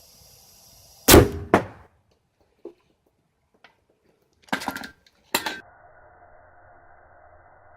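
Homemade propane cannon firing: a sharp bang about a second in, followed half a second later by a second crack, then another pair of sharp bangs a little after the middle.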